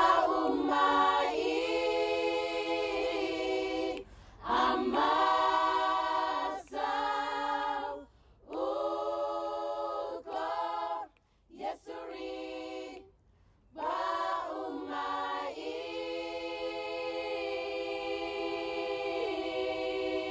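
Choir singing unaccompanied, in short phrases split by brief pauses, ending on one long held note through the last third.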